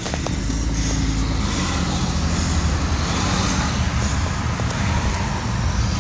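Peugeot car's engine running, heard from inside the cabin: a steady low hum.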